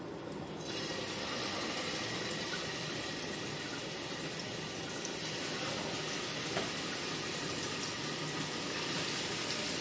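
Beef kofte patties frying in oil in a frying pan, a steady sizzle that starts about a second in as the first patty goes into the hot oil.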